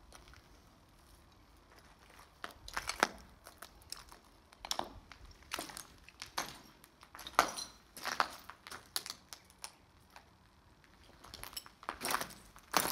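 Footsteps crunching on debris of broken brick, glass and gravel. The steps begin about two seconds in, uneven in spacing, and stop briefly about ten seconds in before going on.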